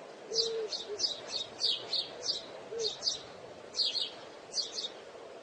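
Alexandrine parakeet giving a quick series of short, sharp, high chirps, some in close pairs, over a steady background hiss.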